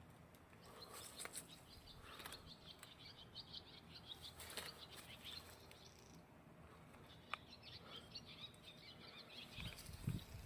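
Faint birdsong: quick repeated high chirps come and go in the background, with a few light clicks. Near the end a low rumble begins.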